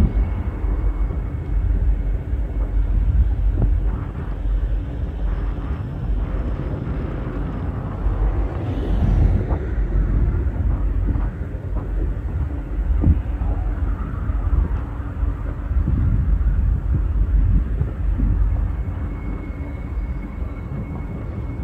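Distant CFM56-7B jet engines of a Boeing 737-700 running at taxi power, a faint steady whine under heavy wind rumble on the microphone.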